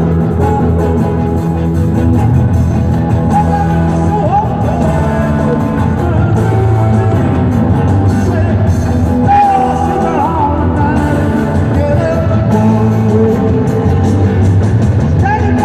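Rock band playing live at full volume, with a singer over the instruments, echoing in a large hall.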